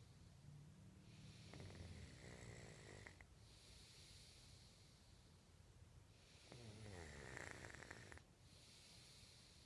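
Faint snoring: two long, fluttering snores, the first about a second and a half in and the second about six and a half seconds in, with quiet breathing between them.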